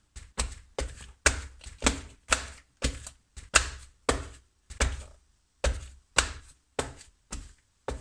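Footsteps going down wooden stairs in shoes, a sharp knock at each step at about two steps a second.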